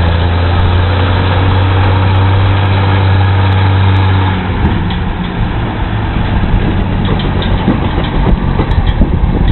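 Vehicle engine running with a steady low hum. About four and a half seconds in, the hum drops away and gives way to an uneven rumbling with scattered knocks.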